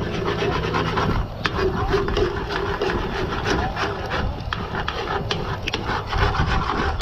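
Chorizo being scraped off the bottom of a pan and stirred: a steady scraping and rubbing, with frequent small clicks of the utensil against the pan.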